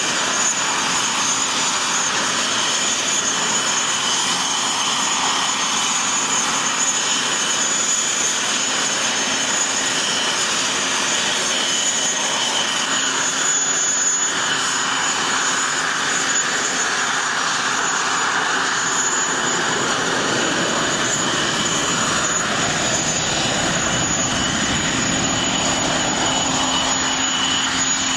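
Two Rolls-Royce Avon turbojets of an English Electric Lightning F.6 running on the ground: a steady high whine over a broad rushing roar. From about twenty seconds in, a deeper rumble builds as the jet begins to roll and turn its exhausts toward the listener.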